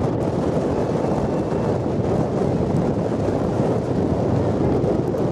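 Wind buffeting the microphone: a steady, fluctuating low rumble with no clear pitched sound in it.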